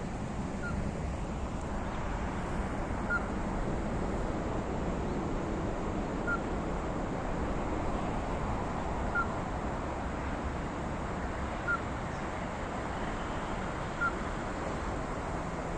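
Ruddy-breasted crake calling: single short notes repeated six times, one about every two and a half to three seconds, over steady background noise.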